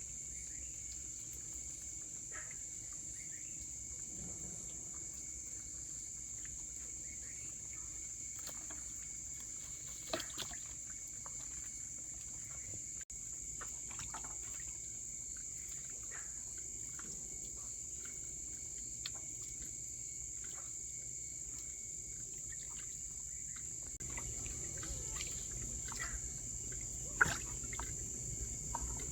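Steady high-pitched insect chirring, with a few sharp knocks, the loudest one near the end.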